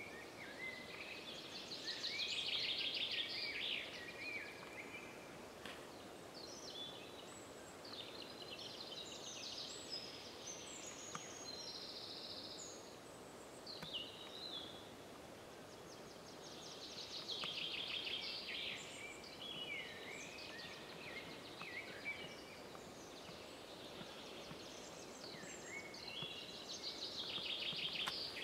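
Several songbirds singing over a faint steady background hiss. The loudest is one bird repeating a trilled phrase three times, each lasting about two seconds, with shorter chirps and calls from other birds in between.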